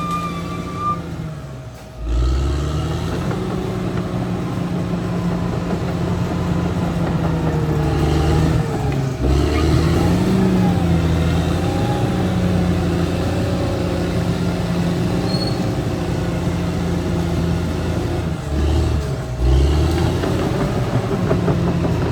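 Caterpillar D6R XL bulldozer running steadily with a deep diesel drone, its engine sound dipping briefly about two seconds in and twice more later. A thin squeal is heard in the first second.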